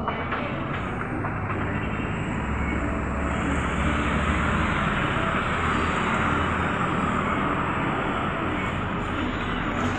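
Steady road-traffic noise: an even rush with a low rumble underneath, no single event standing out.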